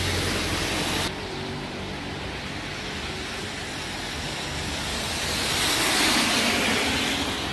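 Street traffic with a low engine hum, and a car driving past close by on the wet, slushy road: its tyre hiss swells and fades about six seconds in.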